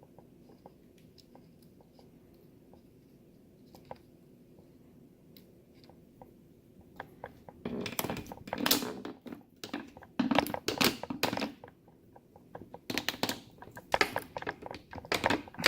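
Close-up handling noise: light ticks at first, then from about eight seconds in a run of loud, irregular clicks, scrapes and rustles, as of small hard parts being handled and worked by hand.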